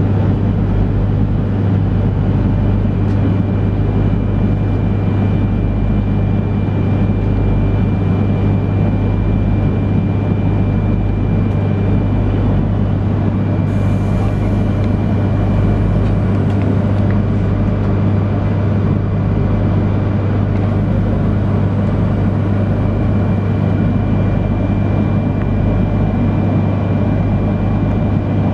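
Steady drone inside the cabin of an E3 series Shinkansen car standing at the platform: a low hum with a thin high tone over it. A brief hiss comes about halfway through.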